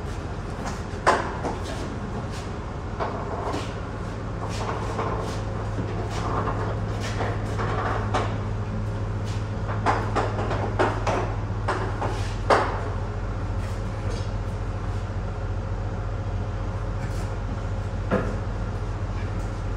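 A manual pallet jack being hauled across a semi trailer's floor under a heavy pallet of batteries, about 3,000 pounds. Its wheels rattle and clank, with sharper knocks about a second in, about twelve seconds in and near the end. A steady low hum runs underneath.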